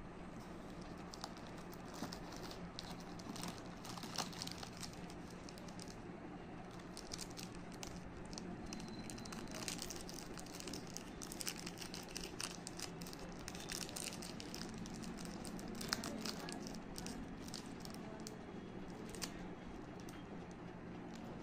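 The plastic-and-foil wrapper of a Nestlé Munch chocolate wafer bar is peeled open by hand. It crinkles and crackles in a string of short, irregular crackles.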